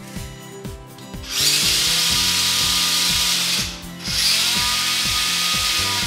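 LEGO Power Functions RC motor in a LEGO 8070 Supercar running, with the car held up off the ground: a loud electric whir with gear noise. It runs twice, about two seconds each, with a short stop near the middle, over background music with a steady beat.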